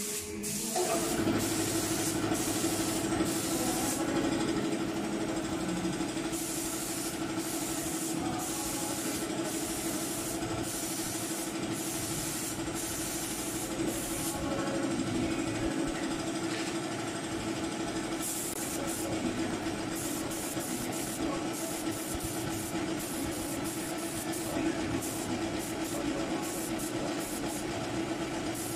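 Air spray gun hissing as it sprays paint, in bursts that stop and start with the trigger, over the steady hum of a motor, most likely the air compressor feeding the gun, which starts up about a second in.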